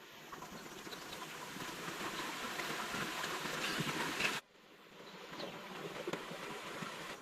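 Steady rushing water noise that builds, breaks off suddenly about four and a half seconds in, and builds again.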